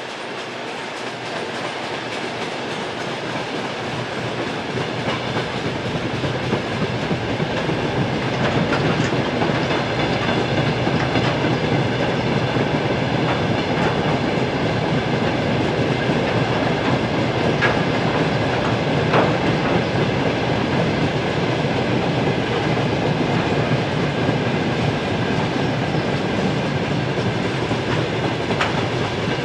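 Freight train wagons rolling past steadily, growing louder over the first several seconds, with a few faint sharp clicks from the wheels on the rails.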